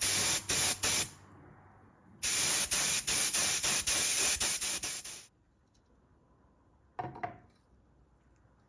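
Compressed-air tool hissing in two long bursts, with a thin high whistle over the hiss: the first burst stops about a second in, and the second runs from about two seconds in to just past five. A single short metallic clink comes about seven seconds in.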